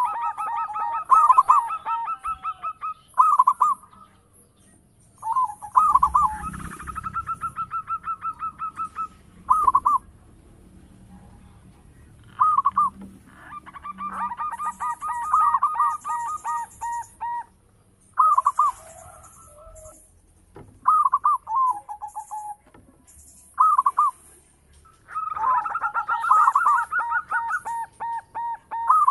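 Zebra dove (perkutut) singing: repeated bouts of rapid cooing notes, some short and some running several seconds, with brief pauses between.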